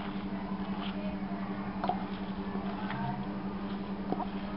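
A hand squishing and kneading minced mutton mixed with soaked bread in a steel bowl: soft, irregular squelches over a steady low hum.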